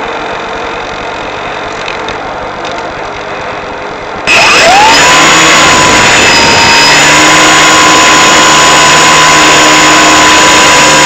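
An electric RC glider's motor heard through the onboard audio. A steady low rushing hum for about four seconds, then the motor spins up suddenly with a quickly rising whine and runs loud and steady.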